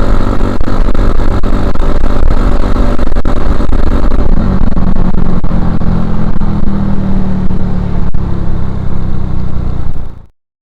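2011 Suzuki Shogun Axelo R's 125 cc four-stroke engine running on the move through a stock Suzuki Satria FU 150 silencer, with a high hiss over it. About four seconds in the hiss eases and the low exhaust note steadies. The sound cuts off suddenly near the end.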